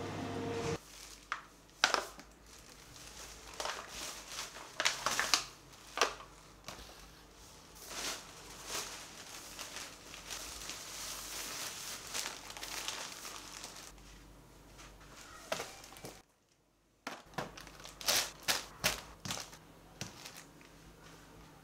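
Plastic grocery packaging and bags crinkling and rustling as groceries are handled and unpacked, with short knocks as jars and packs are set down on a wooden counter.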